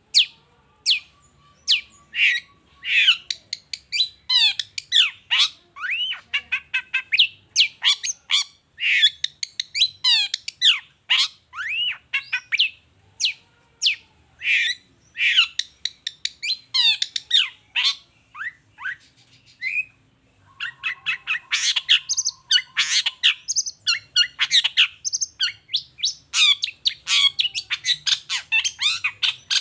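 Long-tailed shrike (cendet) singing in full voice: a rapid, varied stream of sharp chattering notes and squawks. A buzzing rattle comes near the start and another about two-thirds through, after a brief lull.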